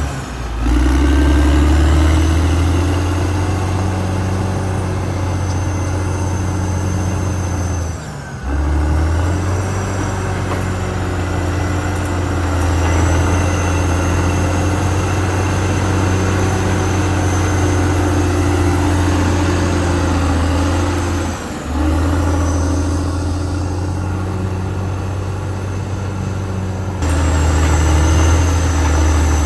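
Caterpillar D6R XL bulldozer's diesel engine running steadily at working speed, a deep drone with a faint high whine above it. The sound drops out briefly three times, as at cuts between shots.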